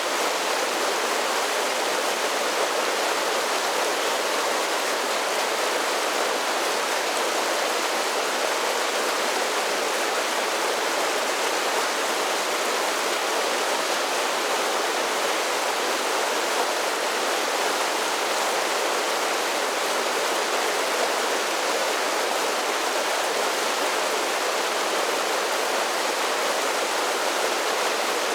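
A mountain creek running over a series of small falls: a steady, even rush of water with no pauses or changes.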